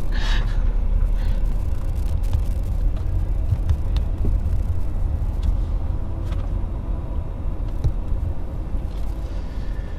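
Car driving at steady speed: a low, steady rumble of engine and road noise heard from inside the cabin.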